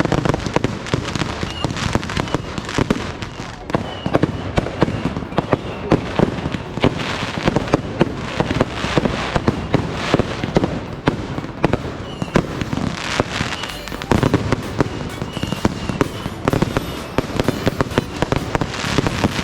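Fireworks display: a dense, continuous run of bangs and crackles from bursting shells, many overlapping each other.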